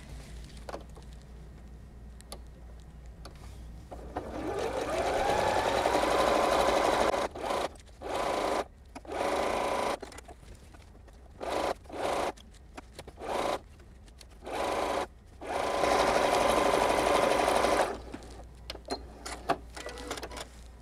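Janome computerised sewing machine stitching a straight side seam: after a few quiet seconds of small handling clicks it starts up and speeds into a rising whine, then runs in several short stop-start spurts, and finishes with one longer steady run that stops a few seconds before the end.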